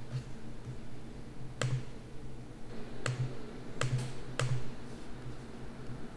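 Computer mouse clicks, about four short sharp clicks a second or so apart, over a faint steady low hum.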